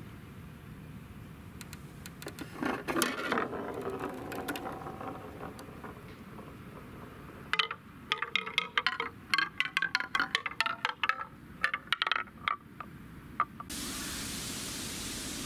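A ball dropping down a wooden spiral marble tree, clacking from one petal-shaped wooden step to the next with a short ringing after each hit: a short burst of clacks a few seconds in, then a long quick run of clacks. Near the end the clacking gives way to a steady hiss of outdoor noise.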